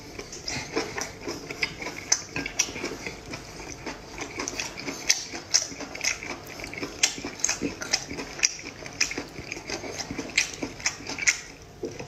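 Close-up eating sounds: a person slurping and chewing braised octopus tentacles, an irregular run of wet sucking and smacking clicks several times a second.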